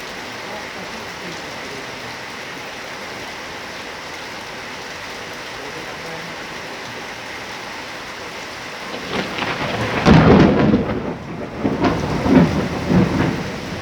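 Heavy rain falling steadily, then a thunderclap about nine seconds in that rumbles on for about four seconds in several loud peaks.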